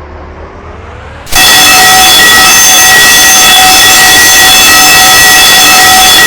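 Fire alarm sound effect that cuts in suddenly about a second in: a steady horn-like tone, played extremely loud and heavily distorted.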